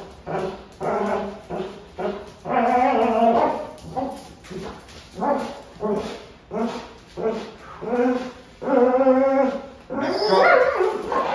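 Dog barking over and over, about two barks a second, with a few longer, drawn-out calls in between.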